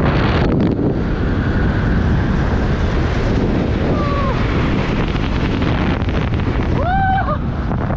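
Loud, steady wind rush over the helmet camera's microphone during a fast parachute swoop to landing. A few short, arching honk-like calls come through near the end.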